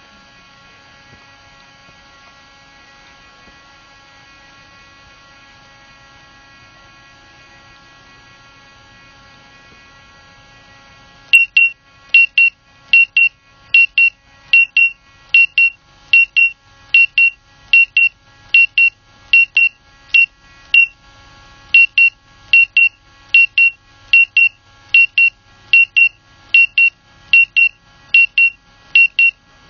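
A quadcopter drone's propellers whine steadily. About 11 s in, its remote controller starts a warning: pairs of high, loud beeps repeating a little under once a second.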